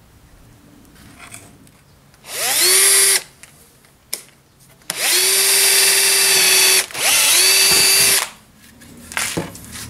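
Cordless drill-driver driving screws into wooden formwork boards: three runs of motor whine, each spinning up quickly to a steady pitch, about one second, two seconds and one second long, the last two almost back to back.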